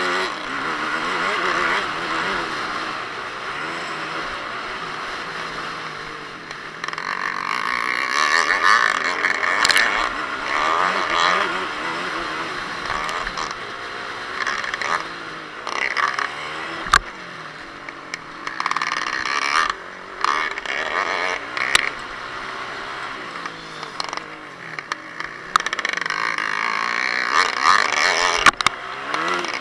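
Yamaha WR250F four-stroke single-cylinder dirt bike engine revving up and falling back repeatedly as it is ridden hard round a motocross track, heard from the rider's own action camera. Several sharp knocks cut through the engine noise in the second half.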